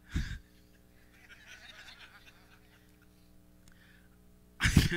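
A pause in a sermon: a short vocal sound from the preacher through his headset microphone at the start, faint scattered voices from the congregation, then the preacher speaking again near the end.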